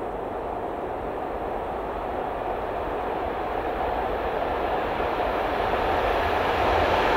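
Approaching diesel passenger train, a class 854 railcar running with a class 954 driving trailer and a class 814 RegioNova unit. Its steady rumble of wheels and engines grows gradually louder as it nears.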